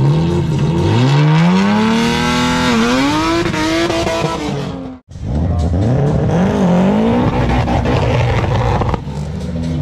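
Car engine revving hard at a drag-race start, its pitch climbing, dipping briefly about three seconds in and climbing again. The sound cuts off abruptly about five seconds in, then an engine revs up again and holds a steady note.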